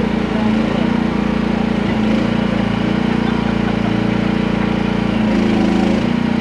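Small gasoline engine of a QH13R micro mini excavator running steadily and loudly. Its note shifts slightly about two seconds in and again around five seconds in.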